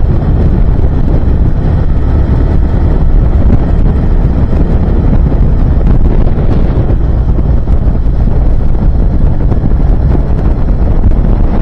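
Heavy wind buffeting the microphone of a Harley-Davidson V-twin motorcycle at riding speed, with the engine's steady low drone running underneath.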